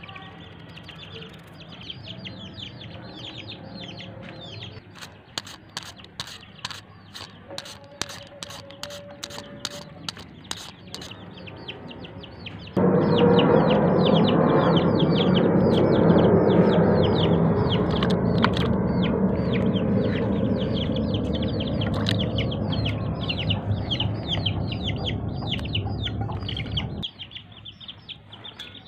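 Water pouring steadily into an orange plastic bowl: a loud splashing rush that starts suddenly about halfway through and cuts off shortly before the end. Before it comes a run of sharp clicks, and small birds chirp rapidly in the background throughout.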